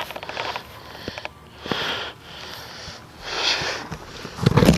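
A person breathing hard and sniffing close to the microphone, two strong breaths about a second and a half apart, then a loud low bump near the end.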